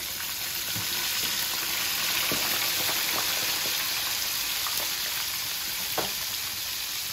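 Fresh-cut potato chips sizzling steadily as they deep-fry in hot oil in a frying pan, stirred with a slotted metal spatula. One light knock near the end.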